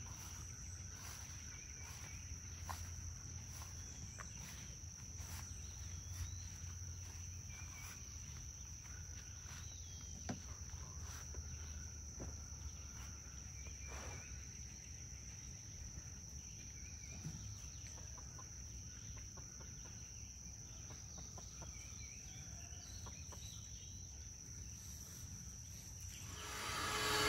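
Insects droning in a steady high tone, with chickens clucking softly and short scattered calls. Near the end a loud mechanical noise starts and swells quickly.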